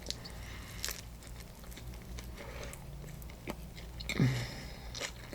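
Close-up mouth sounds of someone chewing a turkey-and-cheese sourdough sandwich: soft wet smacks and crackles, with a brief murmur about four seconds in.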